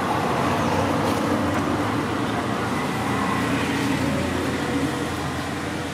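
Steady hum of a motor vehicle engine running, with a rumble of traffic noise underneath, a little louder in the first few seconds.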